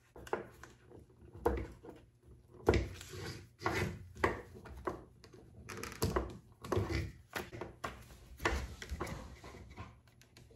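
Irregular clicks, taps and snaps of small plastic model parts being handled, with tabs being snipped off with cutters.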